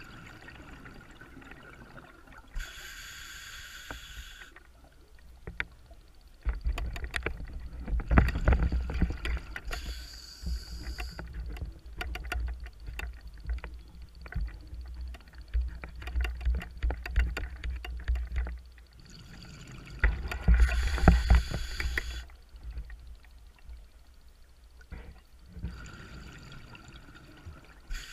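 A scuba diver's regulator breathing underwater: several short hissing inhalations alternate with long, bubbling, crackling exhalations, heard through the camera's waterproof housing.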